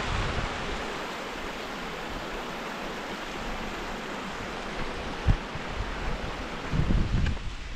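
Shallow mountain creek running over rocks: a steady rush of water. A single knock about five seconds in, and gusts of wind buffeting the microphone near the end.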